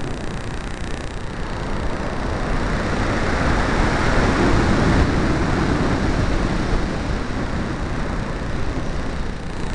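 Airflow rushing over the onboard camera's microphone on an RC glider in flight, swelling to its loudest midway as the glider dives toward the field, then easing off.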